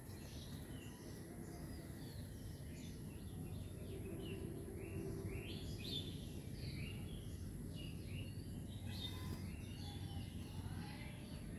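Birds chirping in quick, short calls, many in a row, over a steady low background hum.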